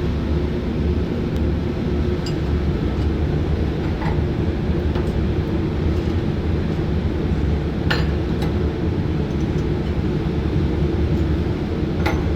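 Steady low drone of shipboard machinery, with a few light metallic clinks as test-kit hose fittings are handled; the clearest clinks come about eight and twelve seconds in.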